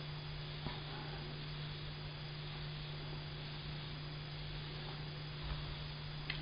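Quiet room tone: a steady low electrical hum with a soft hiss. There is a faint click under a second in and a light tap near the end as a hand takes hold of the laptop's lid.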